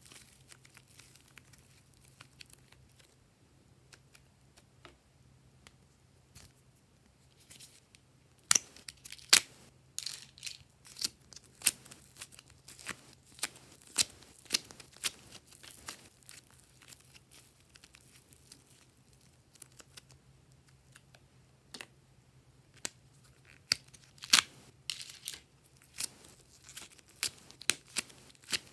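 Hands squishing and stretching glossy slime: irregular sticky clicks and pops, coming in bunches with quieter stretches between.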